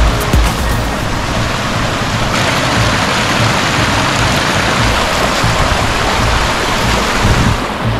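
Steady rush of running water from a mountain stream or spring, an even hiss that grows brighter a couple of seconds in.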